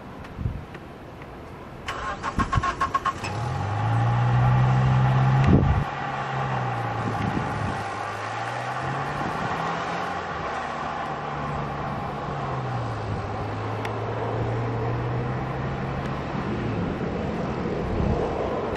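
Boeing 737-800's CFM56 jet engines running at taxi power with a steady high whine, over a lower engine drone that rises and falls in pitch several times. The sound swells about two seconds in and is loudest between about four and six seconds.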